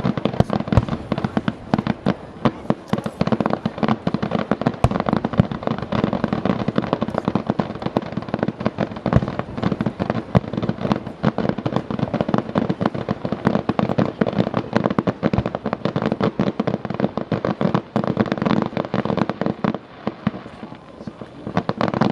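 Fireworks display: a dense, continuous run of rapid bangs and crackling pops from aerial shells, easing off briefly near the end.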